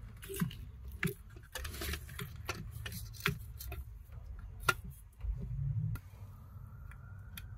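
Scattered small clicks and taps from hands handling the plastic swirl flap actuator motor and its linkage while working it into place, with a brief low rumble a little after five seconds in.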